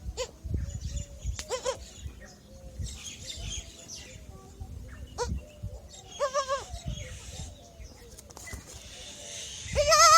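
Newborn kid goats bleating in short, wavering cries, several times, the loudest near the end, with small birds chirping in the background.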